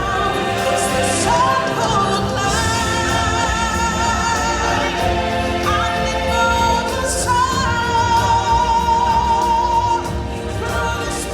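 Show music: a singer holds long notes that waver in vibrato over choir voices and a full backing track.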